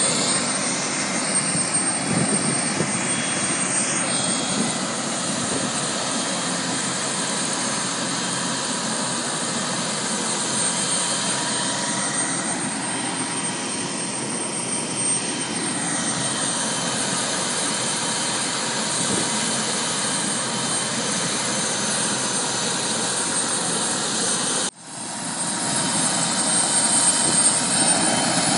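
Helicopter running on the ground with its rotor turning: a steady turbine whine over rotor and engine noise. About three-quarters of the way through the sound drops out for an instant, then comes back louder.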